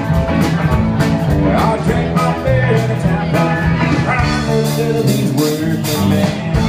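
A live band playing country-tinged rock and roll, heard from the audience: electric and acoustic guitars over a bass line and a steady drum beat.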